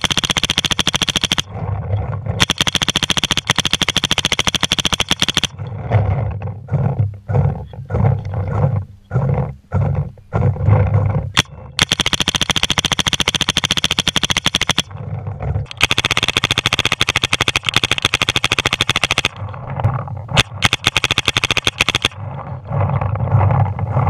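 MacDev Drone2 paintball marker firing rapid strings of shots on ramping semi-auto capped at 10 balls a second. There are several strings, the longest about three seconds, with rough, lower noise in the pauses between them.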